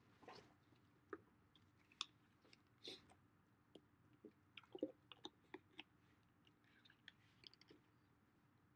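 Near silence: quiet room tone broken by scattered faint clicks and small taps, the clearest about two and five seconds in.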